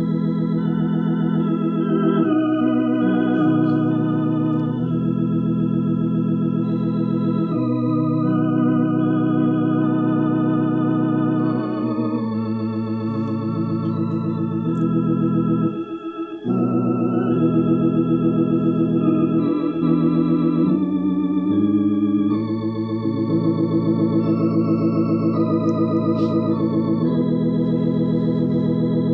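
Organ playing a slow instrumental of sustained, held chords that change every second or two, with a short break between phrases about halfway through.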